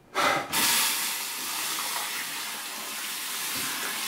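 Water turned on about a quarter-second in, then running steadily at full flow with an even hiss.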